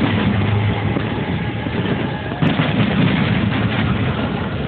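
Fireworks display going off in a dense, continuous run of booms and crackle, with a sharp new bang about two and a half seconds in.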